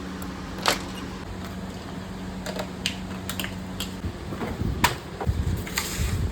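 Scattered sharp clicks and knocks of small hard objects being handled, over a steady low machine hum, with some heavier thumps near the end.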